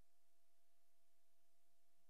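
Near silence: only a faint steady hum and hiss, with no sound of the train.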